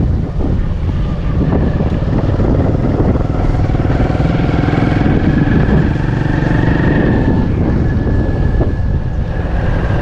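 A motor vehicle, likely a motorcycle, running steadily with wind buffeting the microphone.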